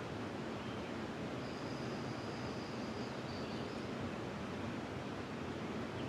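Steady rushing of flowing river water, with a faint, thin high-pitched note held from about a second and a half in to nearly four seconds.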